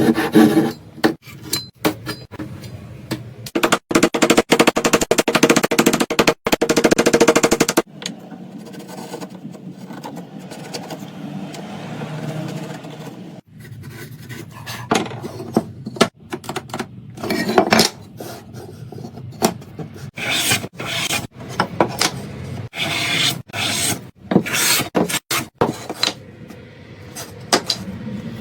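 Hand tools working wood: a rasp or saw scraping in quick strokes, then a quieter stretch, then a run of short separate scrapes and rubs.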